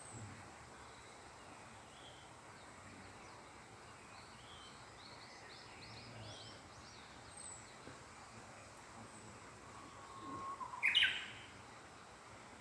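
Small wild birds singing: a quick run of high twittering notes midway, then about ten seconds in a louder song, a held whistle that rises into a quick flourish of notes.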